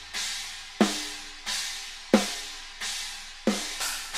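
Recorded drum kit playing back a slow, even beat through the room and overhead mics: a loud snare hit about every 1.3 seconds, with cymbal wash decaying between hits. Partway through, the Smash and Grab compressor is switched from its slow-attack Grab mode to its fast-attack Smash mode, which clamps down on the snare.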